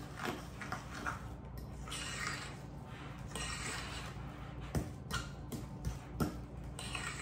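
Fork mashing and stirring a thick egg-yolk and Greek-yogurt filling in a ceramic bowl: soft scraping, squishing strokes about once a second, with a few sharp clinks of the fork against the bowl in the second half.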